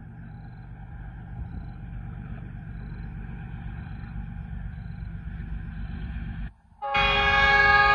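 A GEU-40 diesel-electric locomotive approaching at speed, its low rumble slowly growing louder; about seven seconds in, after a brief drop-out, its multi-tone horn sounds loudly.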